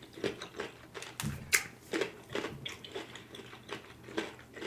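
Close-miked chewing with wet mouth clicks, about two to three chews a second, irregular.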